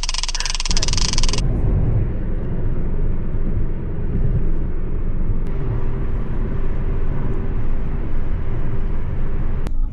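Steady low rumble and road noise of a car driving. It opens with a loud, harsh rattling noise lasting about a second and a half that starts and stops abruptly.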